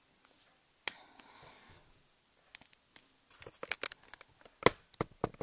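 Scattered clicks and taps from hands handling and opening a cardboard eyeshadow palette, with a quick run of small crackling clicks a little past halfway and the sharpest tap near the end.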